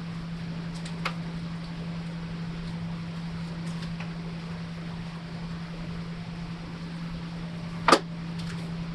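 A steady low hum with a light sharp click about a second in and a louder sharp click near eight seconds in.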